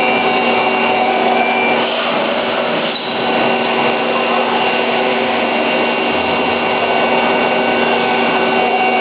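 Johnford SL-500 slant-bed CNC lathe running, a steady machining whir with several constant whining tones over it, dipping briefly about three seconds in.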